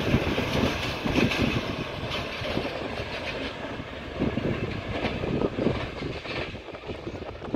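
Railway track sound: a passenger train's wheels clattering over the rail joints, loudest at the start and easing off after a couple of seconds.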